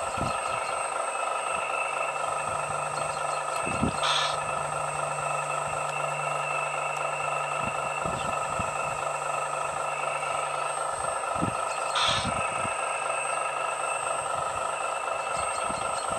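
Radio-controlled model excavator working, its motor whining steadily, with a lower hum through most of it. A brief hiss comes twice, about four and twelve seconds in, and small knocks are heard as the bucket works the rubble.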